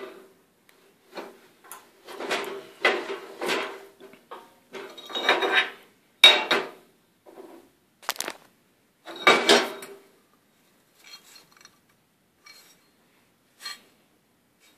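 Irregular metal clanks and scrapes of a steel flat bar being handled against the cast-iron bed of a 4x6 metal-cutting bandsaw, with its motor off. The louder clatter comes in the first ten seconds, then a few faint taps.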